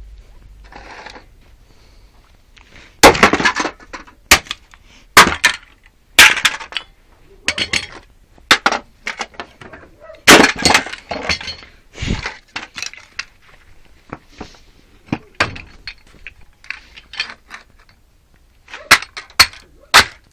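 Alarm clock being broken apart by force: irregular sharp cracks and knocks of its case, with clinks of small metal parts, some of them ringing briefly.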